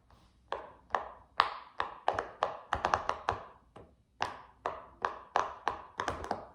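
A silicone push-pop fidget toy being popped by finger: a quick, uneven string of sharp pops, about three a second, with a short pause near the middle.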